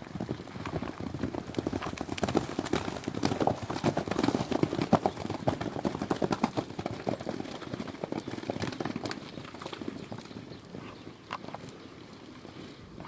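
Hooves of several horses galloping over soft grass and mud, a quick, irregular patter of thuds. It grows fainter over the last few seconds as the horses run off.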